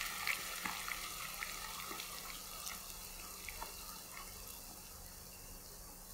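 Coca-Cola poured in a thin stream into a hot pan of browned chicken wings, hissing and fizzing with many small pops as it foams up. The hiss gradually dies down.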